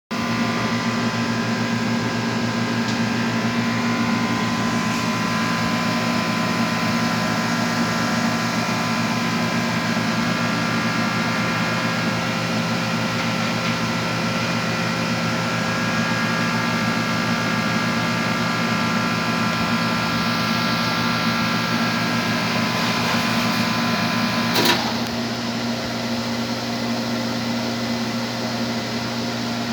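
Steady hum of high-vacuum coating equipment running, many held tones at once. About 25 seconds in a sharp click sounds, and part of the hum drops away, leaving a quieter, steady running.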